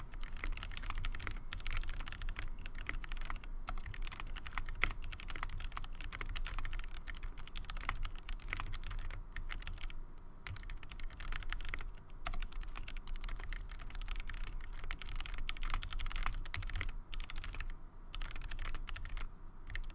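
Steady typing on a ZZ96 mechanical keyboard with linear Gateron Clear switches on 67 g springs and GMK Olivetti keycaps: a fast, continuous run of key clacks broken by a few short pauses.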